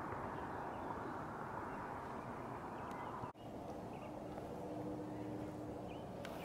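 Steady rush of wind and lapping water on the microphone close to a lake's surface. The sound drops out for an instant a little past halfway, then continues weaker under a faint steady hum, with a few faint bird chirps.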